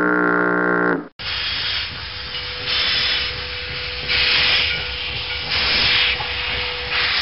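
Steam locomotive sound effect: a steady hiss of steam with slow chuffs swelling about every second and a half, and a faint steady tone beneath. It starts suddenly about a second in, after a chord-like sound cuts off.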